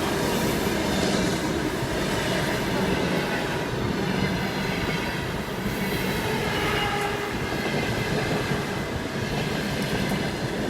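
Freight train rolling slowly past, its wagons making a steady rolling noise on the track.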